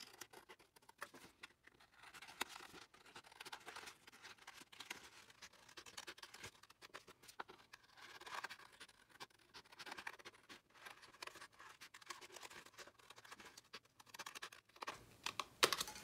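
Scissors cutting around a sheet of waterslide decal paper: a long run of faint short snips and paper rustles.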